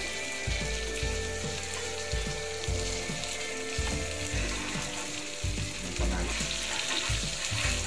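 Pork sisig sizzling on a hot sizzling plate while a spoon stirs and scrapes through it, with irregular dull knocks.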